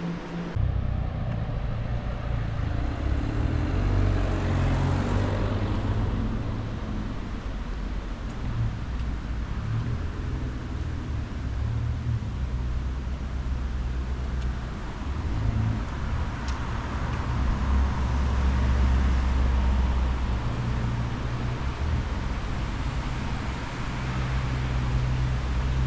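Cars passing on a road: two swells of tyre and engine noise, one about four seconds in and another a few seconds past the middle, over a steady low rumble.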